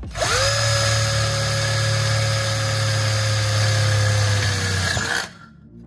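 Electric drill running a freshly sharpened twist bit through a sheet-metal channel: the motor spins up about a quarter second in to a steady whine over a low hum, then cuts off about five seconds in.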